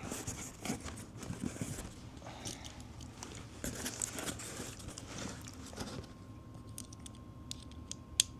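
Packaging crinkling and tearing as a new putter is unwrapped, a crackly rustle for about six seconds, followed by a couple of sharp clicks near the end.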